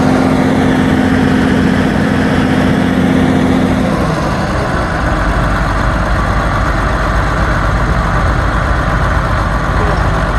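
Belarus 1221 tractor's six-cylinder diesel engine running at high revs, then throttled back about four seconds in and idling steadily after the failed pull.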